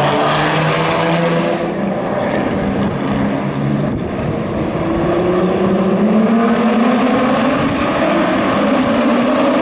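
Formula Yas 3000 race car's engine running hard. Its pitch dips about four seconds in, then climbs steadily through the second half as the car accelerates.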